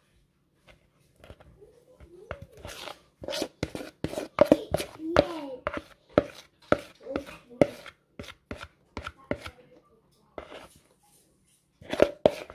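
A kitchen utensil knocking and scraping against a mixing bowl as cake batter is scraped out into a loaf tin: a run of quick knocks with short squeaks between them, about three a second, a brief pause, then a last cluster near the end.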